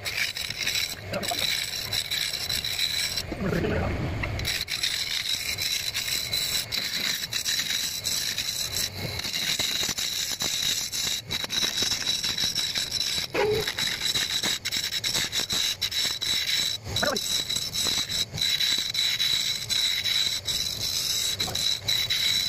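Wood lathe running with a steady high whine while a hand-held chisel scrapes and cuts along a spinning wooden handle. A few short voice-like sounds come through, the loudest about four seconds in.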